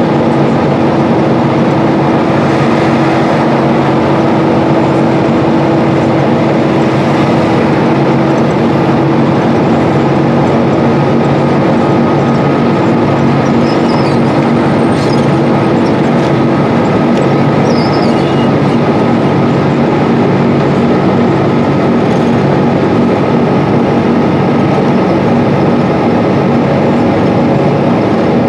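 Cummins ISL 280 diesel engine of a 2012 Gillig BRT transit bus running steadily under way, heard from inside the cabin with road and tyre noise. A thin steady whine sits over the drone for most of the stretch.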